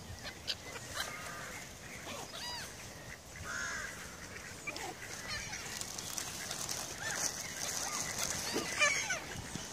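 Gulls and mallard ducks calling together: a scattered run of short squawks and quacks from the flock, busier in the second half.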